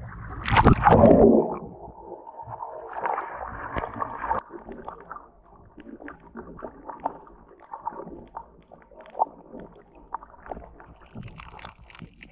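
Muffled underwater water noise picked up by a camera held below the surface: a loud gurgling rush of water about half a second in, then scattered faint crackling and clicks.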